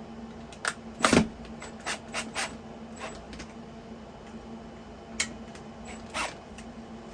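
Irregular sharp knocks and clicks of wall-mount hardware being handled and fitted against a wall, the loudest about a second in, over a steady low hum.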